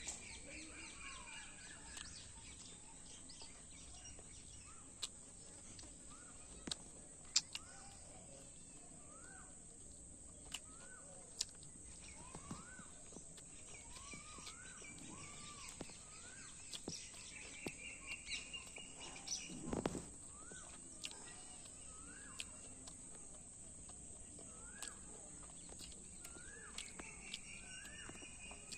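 Birds calling: a steady series of short rising-then-falling chirps, with a few longer buzzy calls, over a steady high hiss. Scattered sharp clicks and a short low thump about two-thirds of the way through.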